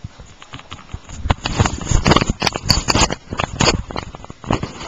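A quick, uneven run of clicks and taps of small plastic toys against a hard surface, thickest from about a second in until near the end.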